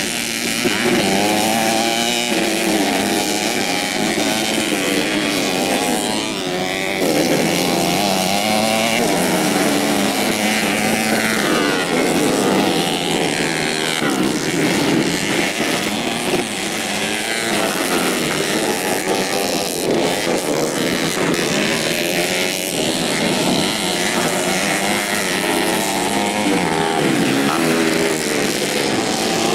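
Several modified 125cc four-stroke underbone motorcycles racing, their engines revving up and down and overlapping without a break.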